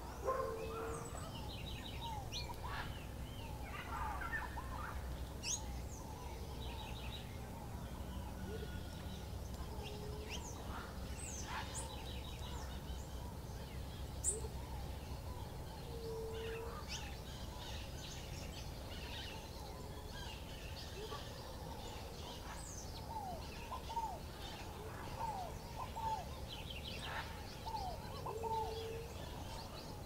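Many small songbirds calling at once: scattered short chirps, quick rattling trills and brief downward-sliding whistled notes, with a few short low hooting notes, over a steady low background rumble.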